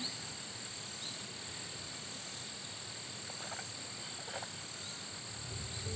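Steady, high-pitched chorus of insects trilling.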